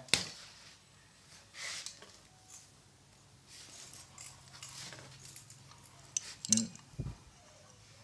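Screwdrivers being handled, giving a few light metallic clicks and clinks with a short low knock near the end; otherwise quiet between them.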